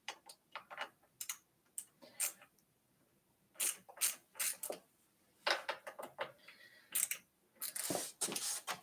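Irregular sharp clicks and light knocks from hands working the handlebars and stem of a Haoqi Antelope e-bike while straightening them, in scattered clusters with a quiet second about a third of the way in.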